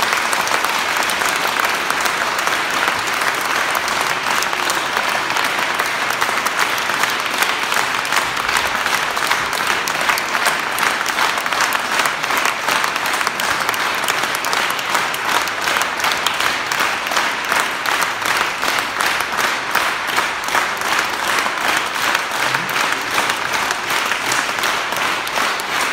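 Audience applauding after a performance, the clapping falling into a more even rhythm in the second half.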